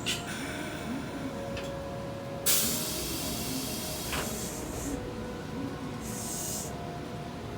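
Kintetsu 2800-series electric train standing after its stop, its air system letting off compressed air: a sharp hiss about two and a half seconds in, then shorter hisses later, over a steady hum.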